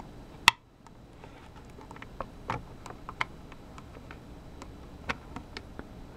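One sharp click about half a second in, then scattered faint ticks and taps: fingers and a meter probe handling the AAA batteries and the plastic battery compartment of a small LED light.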